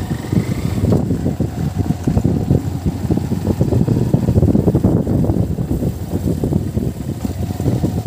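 Wind buffeting the microphone while moving along in an open vehicle: a gusty low rumble that keeps rising and falling.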